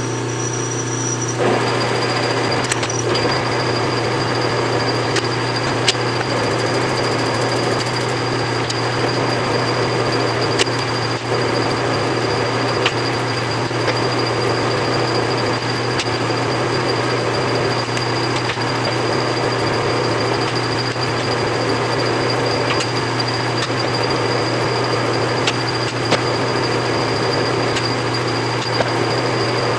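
Large engine lathe starting up about a second and a half in and running steadily to single-point cut a coarse thread. A steady hum carries a thin, high whine, with occasional sharp ticks.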